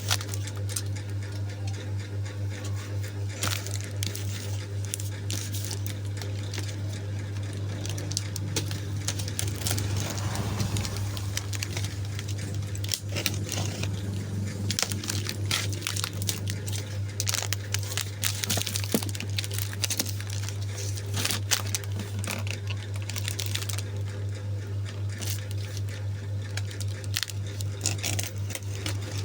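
Packaging being unwrapped and handled: plastic and cardboard crinkling and rustling with scattered small clicks, over a steady low hum.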